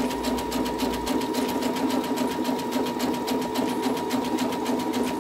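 Electric sewing machine running steadily, stitching a zigzag seam through doubled oilcloth with a fast, even rhythm of needle strokes over a constant motor hum.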